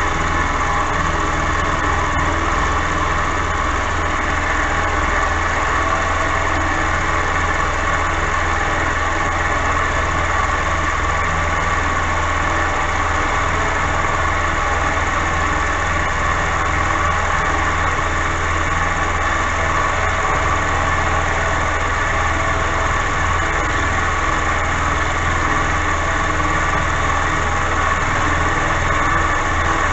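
Milling machine running under power feed, its cutter milling a slot through a block of steel: a steady machine hum with a steady whine on top, unchanging throughout.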